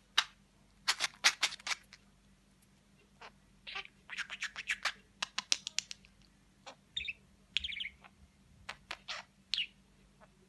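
Pet budgerigar chirping and chattering: bursts of short, sharp high chirps with a few warbled notes, broken by brief pauses.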